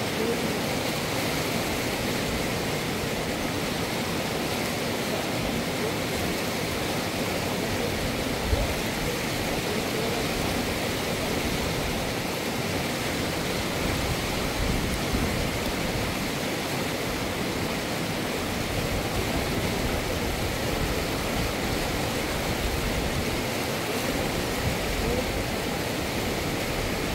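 River water rushing steadily, with one brief low knock about eight seconds in.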